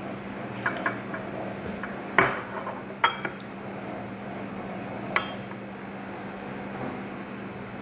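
Metal cutlery clinking against a dinner plate and an open sardine tin while eating: about six sharp clinks, the loudest about two seconds in. A steady low hum runs underneath.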